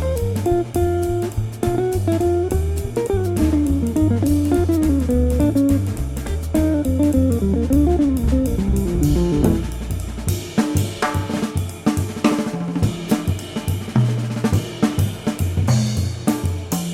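Background music: a guitar melody over bass and a drum kit with cymbals. The bass and melody drop back about two-thirds of the way through, leaving mostly the drums.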